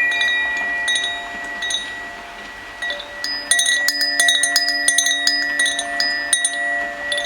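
Zaphir chimes ringing, many bright struck notes overlapping and sustaining, sparse for the first few seconds and then a dense cluster of strikes from about three seconds in. Underneath is a steady hiss of rain.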